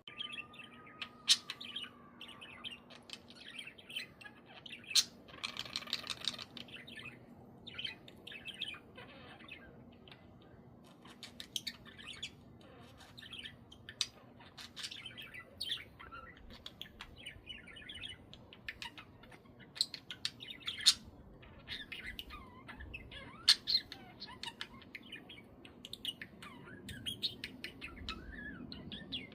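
Budgies chirping and squawking in short, sharp calls scattered throughout, with a longer buzzy call about six seconds in.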